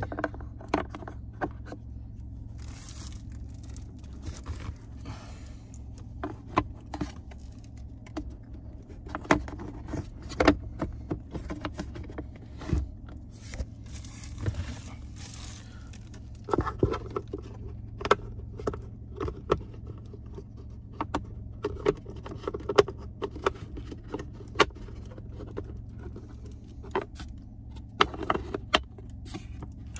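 Irregular plastic clicks, taps and short scrapes with some rustling, from a cabin air filter and its cover being handled and refitted behind a car's glovebox, over a steady low hum.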